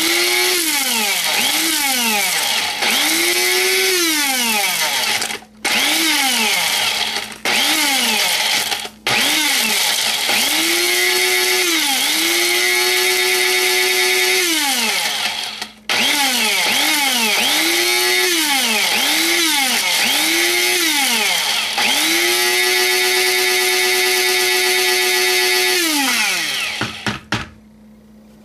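Electric blade spice grinder pulverising dried chili peppers, run in a string of short pulses and a few longer holds of several seconds; the motor whines up in pitch each time it is pressed and winds down when released. It stops near the end, followed by a few light taps.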